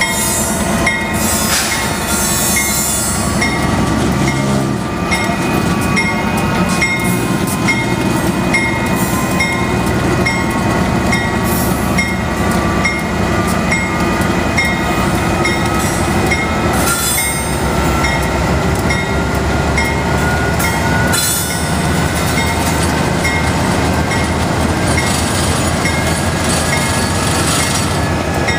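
Union Pacific diesel locomotive running loudly at a grade crossing, stopped after locking up and trying to get moving again, with a steady rumble and a faint, slowly shifting whine. A warning bell rings steadily throughout, about one and a half strikes a second.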